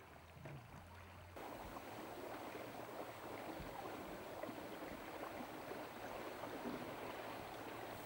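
Steady rush of water along the hull of a boat moving on a canal. It comes in about a second and a half in, after a brief faint low hum.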